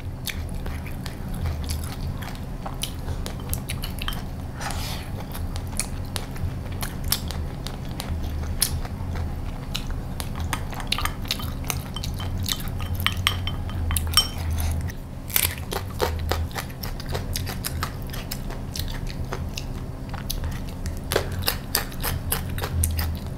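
Close-miked eating: chewing and crunching mouthfuls of food, with chopsticks clicking against the bowl and dishes, over a steady low hum.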